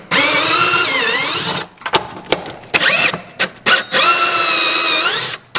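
Handheld cordless power tool spinning off the two 10 mm nuts on the back of a Mustang's stock shifter: a motor whine in two long runs with a short burst between them. The pitch sags under load and rises again as each nut frees.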